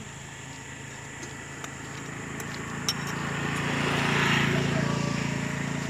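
A motor vehicle passing along the road, its engine and tyre noise growing louder to a peak about four seconds in and then fading. A few light clinks sound along with it.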